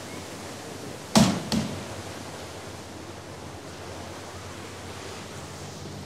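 Steady harbour ambience of water lapping, with a heavy thump about a second in and a lighter knock half a second after it.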